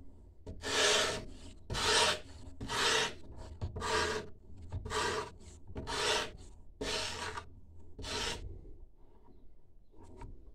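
Abrasive bar of a homemade guided knife sharpener, faced with wet-and-dry sandpaper, scraped along a knife blade in eight strokes at about one a second. The strokes stop about two seconds before the end, leaving a faint click.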